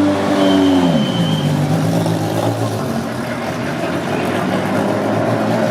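Group C race car engine coming down from a rev, its pitch falling over about half a second shortly after the start, then running steadily at a low idle.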